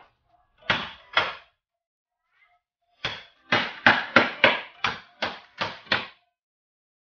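A knife blade being driven through an eel on a wooden cutting board by blows from a cleaver on its spine: sharp metal-on-wood knocks, two about a second in, then a quick run of about eight, a few to the second.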